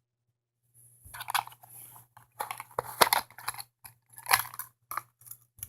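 Hard plastic toy parts clicking, rattling and scraping in irregular bursts, starting about a second in, as a toy car is pushed and worked into a plastic toy combine harvester.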